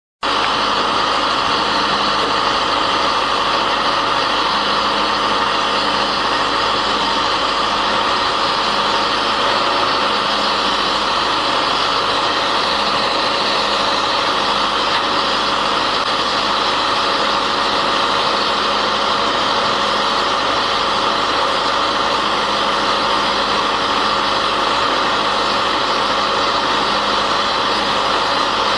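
Engine of a ROADSKY SC Series auger drilling rig running at a steady speed, with an even, unchanging mechanical drone.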